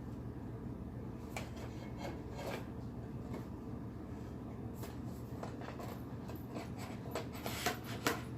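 Faint rubbing and scraping of packaging being handled and opened, with scattered small clicks that grow busier near the end, over a steady low room hum.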